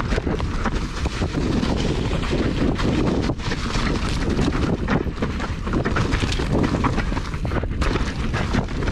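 Wind buffeting the microphone of a mountain bike's on-board camera during a fast descent, over tyre noise on the dirt trail and frequent rattling knocks from the bike over rough ground.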